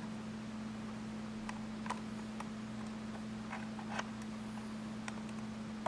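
Scattered small plastic clicks and ticks as a screwdriver pries between the chassis and the plastic shell of an HO-scale Athearn AMD-103 model locomotive, popping the rear snap-tab clips loose. A steady low hum runs underneath.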